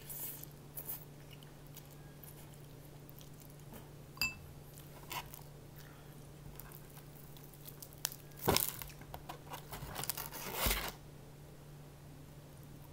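Biting into and chewing crispy crumb-coated fried chicken, with loud crunches about eight and a half seconds in and again around ten seconds in. A short slurp of noodles at the start and a single light clink about four seconds in.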